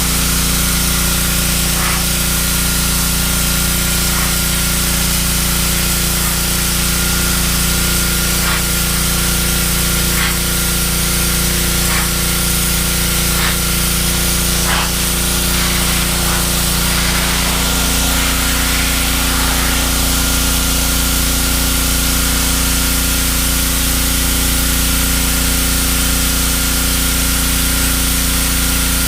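Pressure washer running steadily: a constant motor hum under the loud hiss of its high-pressure spray, with a few faint ticks in the first half.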